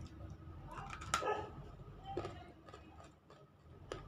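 Teeth biting and crunching half-roasted lumps of edible clay (nakumatt): a few separate crisp crunches, the loudest cluster about a second in.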